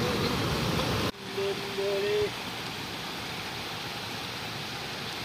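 Glacier-fed mountain stream rushing over rocks, a loud even rush of water. About a second in it cuts to a quieter, steady trickle-and-rush, and a brief steady tone sounds for about a second just after the cut.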